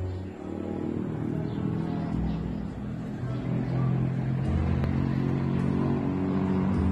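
A motor vehicle engine running with a steady low hum that shifts pitch a few times, getting louder over the first few seconds.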